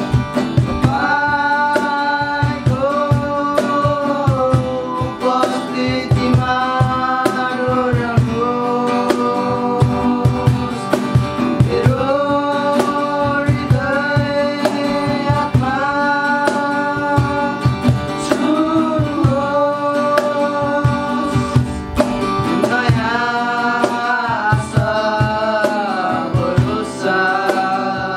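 A song: a singing voice carrying a held, sliding melody over guitar and a steady drum beat.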